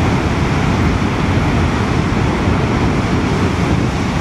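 Steady rush of water from Niagara Falls, with wind buffeting the microphone.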